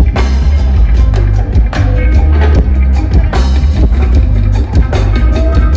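Live reggae band playing loudly through a PA: deep bass line, drum kit and guitar.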